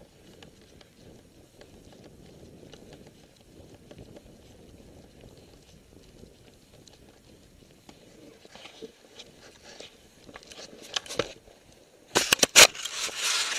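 Footsteps in snow with a low wind rumble on the microphone. Toward the end come crackling clicks, then a loud burst of knocks and rustling as the camera is jostled and handled.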